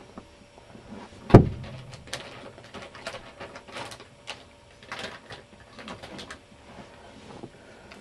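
Handling noise: one sharp knock about a second and a half in, then scattered light clicks and rustles.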